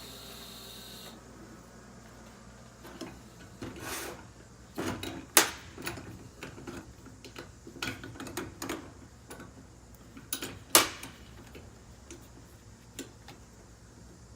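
TIG welding arc on stainless steel buzzing steadily, cutting off about a second in. Then a series of sharp clicks and knocks follows, two much louder than the rest, as the welding gear and workpiece are handled between welds.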